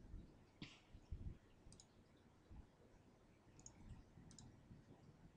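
Faint computer mouse button clicks, three of them, each a quick double tick of press and release, over near-silent room tone.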